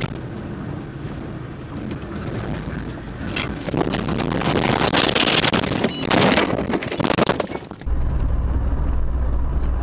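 Road noise inside a moving car, then from about three and a half seconds in a loud rushing noise with several sharp knocks as debris flies across the windscreen. It ends abruptly near the end, giving way to a steady low engine and road drone.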